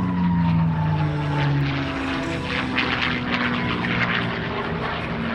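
P-51D Mustang's Merlin V-12 engine and propeller on a fly-by. The engine note drops in pitch as it passes during the first two seconds, then settles into a steadier drone as the aircraft flies away.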